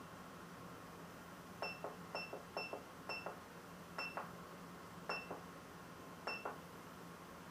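Keypad buttons on a wheel balancer's control panel pressed seven times, each press giving a click and a short high electronic beep, while the wheel settings are being entered.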